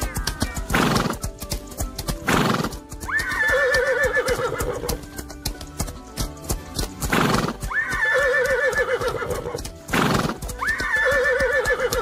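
Horse neighing three times, each whinny rising sharply and then shaking in a long quavering trill, with short breathy blasts between them. Underneath run galloping hoofbeats and background music.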